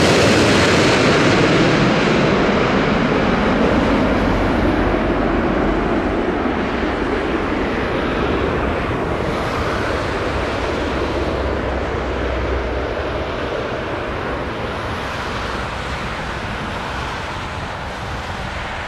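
Airbus A380's jet engines, a loud rumble that fades slowly as the aircraft moves away, with the high whine dying out first.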